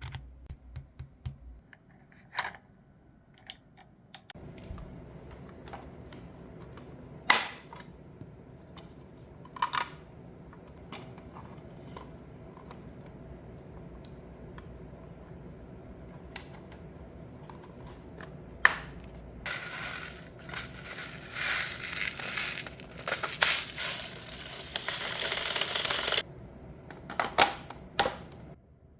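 Handling and assembly sounds from a Tokyo Marui M16A1 airsoft rifle: scattered clicks, snaps and knocks of parts being fitted and worked, with several seconds of rustling and scraping about two-thirds of the way through.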